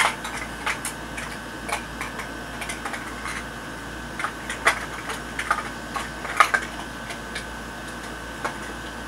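Irregular small clicks and scratches of hands working hair into a bun and pushing in hair pins close to the microphone, the loudest click about six and a half seconds in.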